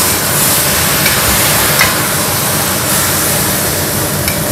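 Diced tomatoes and scrambled egg sizzling in a hot stainless steel wok as a metal spatula stirs them, with a few light taps and scrapes of the spatula against the pan.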